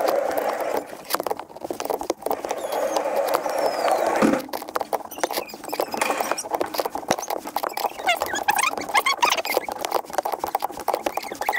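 Hand ratchet clicking fast in runs, then in slower, separate clicks from about four seconds in, as the top nut of a rear shock absorber mount is tightened down.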